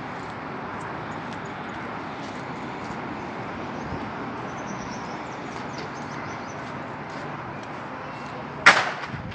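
Steady outdoor street noise picked up by a handheld phone while walking on a brick sidewalk. A sudden loud bump comes near the end.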